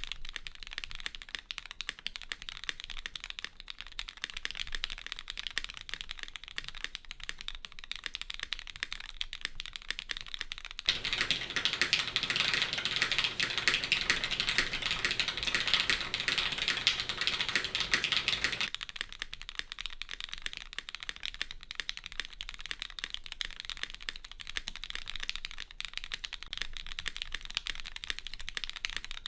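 Typing on a custom mechanical keyboard with lubed Cherry MX Black linear switches on an aluminium plate and GMK keycaps: a fast, steady stream of keystroke clacks. For a stretch in the middle the typing is louder and fuller, then drops back to the earlier level.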